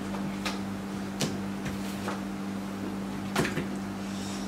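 Playing cards being handled and put down on a table: a few short, light taps and clicks, the clearest about a second in and again past three seconds, over a steady low hum.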